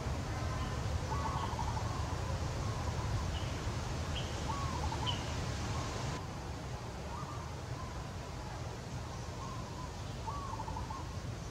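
A bird calling over and over, every second or two, each call a short rising note with a falling trail, over faint higher chirps and a steady low rumble that drops a little about halfway through.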